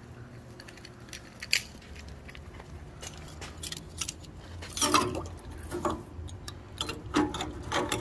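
Metal clinking and rattling as the wire basket of an ultrasonic parts cleaner and the carburetor parts are handled: a run of sharp clicks and clatters, busiest about five seconds in and again near the end, over a steady low hum.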